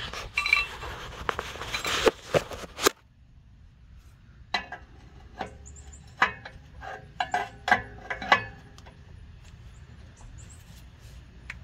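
A 22 mm wrench being fitted and worked on a rusty exhaust oxygen sensor: a run of sharp, irregular clicks and knocks. Before it come a few seconds of rustling handling noise.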